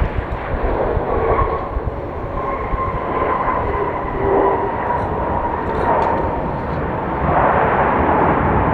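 Jet airliner engines running as the plane passes: a broad rush with a steady whine, over a gusty rumble of wind on the microphone.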